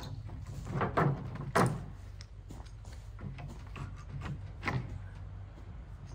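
Several hollow wooden knocks and clatters as old boards are handled and set down on a stack, the two loudest about a second and a second and a half in, another near the end.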